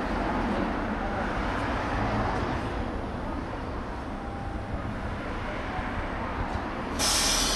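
Steady street and traffic noise with a low hum beside a streetcar waiting at its stop. Near the end a sudden loud, high, ringing signal sounds.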